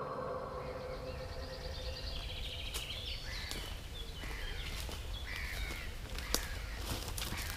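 Birds calling in woodland, a busy series of short chirps that starts about two seconds in, over a low steady rumble. Footsteps in the undergrowth make a few sharp cracks in the second half.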